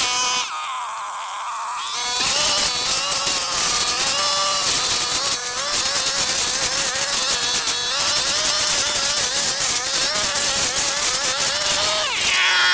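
Two-stroke brush cutter running at high speed, its engine note wavering as it cuts through grass and undergrowth. It drops briefly about half a second in and revs up and back down near the end.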